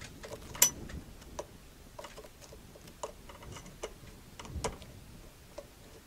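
A handful of light, irregular clicks and taps from hands working the wires and terminals of a doorbell transformer on a junction box.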